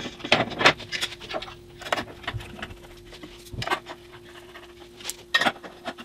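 Metal-on-metal handling of an aluminium slide rail and its fittings on a band saw's sliding table: a series of irregular sharp clicks and clacks as the rail is seated and a T-handle hex key is turned, over a faint steady hum.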